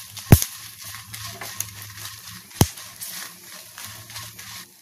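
Byadagi dried red chillies and cinnamon roasting in a pan with a little oil, a faint sizzle, with two sharp knocks of the stirring spatula against the pan about two seconds apart.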